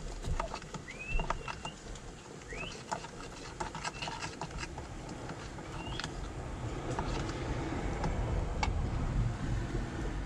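Utensil stirring pancake batter in a plastic container: repeated light clicks and scraping against its sides, over a low steady rumble, with three short rising chirps.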